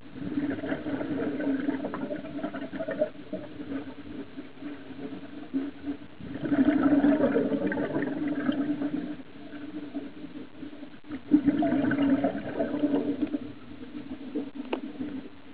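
Scuba diver breathing through a regulator underwater: exhaled air bubbling out in three bursts of two to three seconds each, about every five seconds, with quieter inhalations between.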